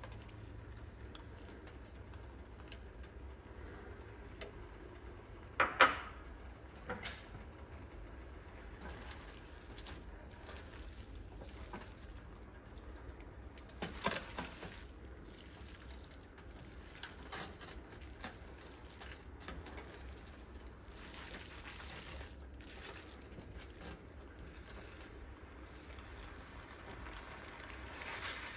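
Chopsticks and then tongs tossing and stirring fried instant noodles with sausage and cabbage in a pan: soft moist stirring, with sharp clatters of the utensils against the pan about six seconds in, again a second later, and at about fourteen seconds. A steady low hum underneath.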